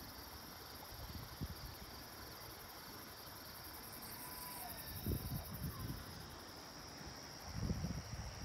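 A steady chorus of insects chirping in the grass, a high, fast, even pulsing. Brief low rumbles on the microphone come about five seconds in and again near the end.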